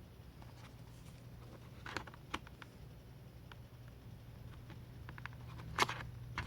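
Scattered key presses on a Yunzii Keynovo IF98 mechanical keyboard with brown switches. A few sharp clacks come about two seconds in and again near the end, with fainter taps between them, over a low steady hum.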